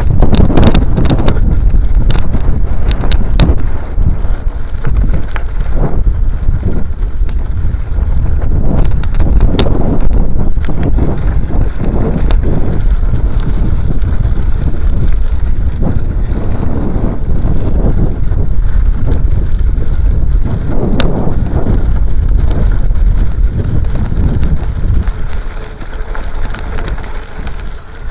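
Heavy wind buffeting on the microphone while riding over a loose gravel road, with scattered knocks and rattles from stones under the wheels. It eases off a little near the end.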